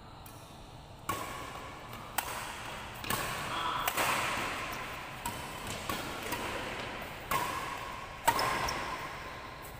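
Badminton rackets striking a shuttlecock in a fast doubles rally: sharp, echoing smacks about once a second, the last one loudest.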